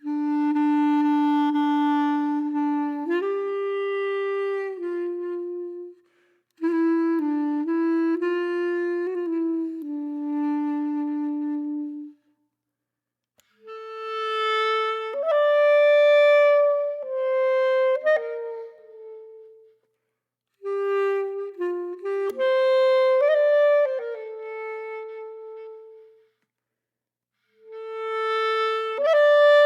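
Background music: a single solo melody of long, held notes, played in phrases with short silent breaks between them.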